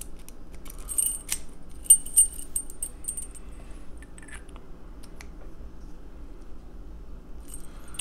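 A small metal tool and a padlock clinking together as the tool is fitted against the lock. Light metallic clicks and jingles come in a cluster in the first few seconds, the sharpest about two seconds in, then only occasional faint ticks.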